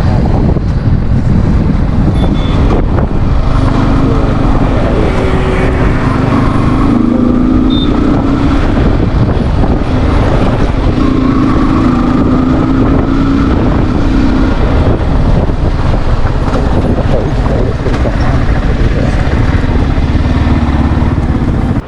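Riding a Yamaha R15 motorcycle: wind buffeting the helmet-mounted microphone over the single-cylinder engine and road noise, with the engine note coming up twice.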